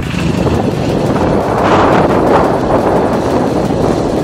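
Wind buffeting the microphone over the steady running noise of a motorcycle on the move.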